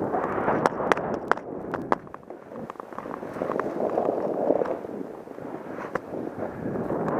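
Snowboard riding through deep powder snow, heard up close from a body-mounted camera: a rushing hiss of the board and spraying snow that rises and falls, with many sharp clicks and taps over it.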